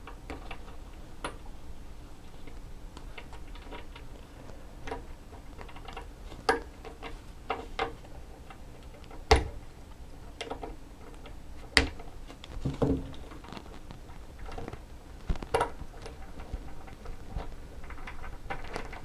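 Irregular light clicks and taps of a small part being handled on a workbench: the rubber dust boot of a rebuilt motorcycle rear brake master cylinder being worked into its groove. A few sharper knocks come around the middle, with a brief rubbing squeak soon after.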